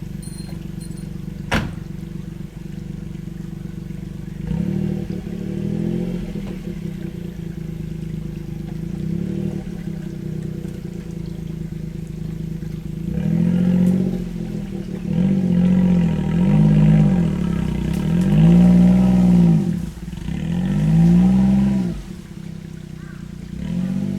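Old Suzuki Jimny's engine running as it drives, the revs rising and falling again and again as it pulls away and shifts through the gears. There is a single sharp click near the start.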